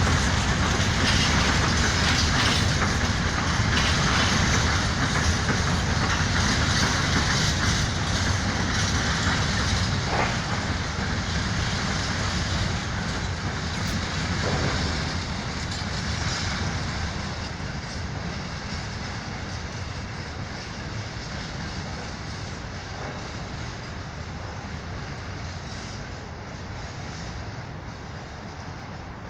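Freight train wagons rolling past on the rails, a steady rumbling clatter that slowly fades away as the train moves off.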